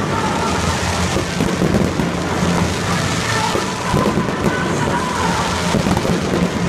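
Fireworks display going off in quick succession: a dense, continuous crackle of many small bursts with no pauses.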